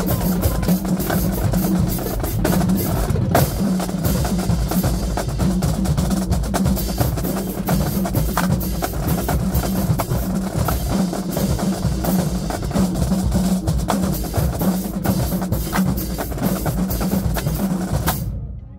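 Marching band drumline playing a fast, dense cadence on snare drums and other marching percussion. It stops suddenly near the end.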